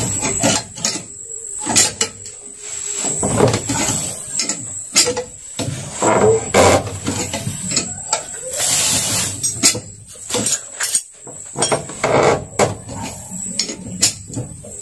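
Irregular knocks, clicks and clatter of hand tools against metal engine parts during the teardown of a Yamaha 40 HP outboard motor.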